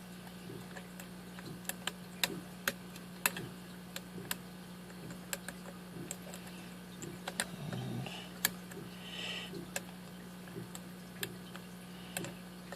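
Lock pick and tension wrench working the pins inside a Master Lock six-pin padlock core during single-pin picking: sharp, irregular small clicks and ticks as pins are lifted and set. A steady low hum runs underneath.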